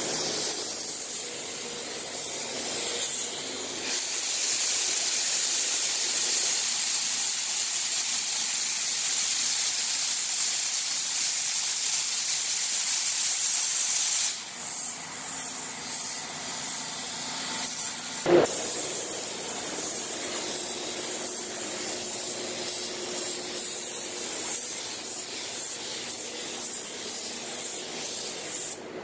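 Air-powered gravity-feed paint spray gun hissing as it sprays, with a brief drop about fourteen seconds in and short on-off spurts near the end as the trigger is pulled and released. One sharp knock about two thirds of the way through.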